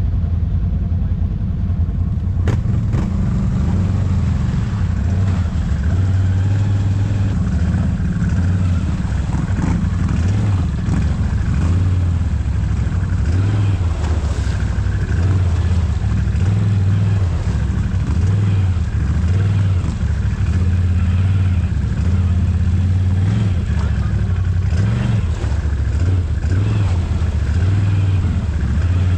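ATV engine running under varying throttle: a loud, continuous low drone that swells and eases every second or two.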